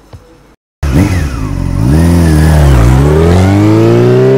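Motorcycle engine revving, coming in loud about a second in; its pitch rises, dips, then climbs steadily as it accelerates.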